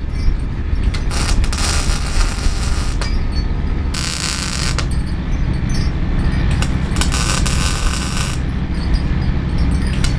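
MIG welding with a Lincoln Electric 210MP welder: the arc crackles and sizzles in several bursts of one to two seconds as steel shelf brackets are tacked and welded, over a steady low hum.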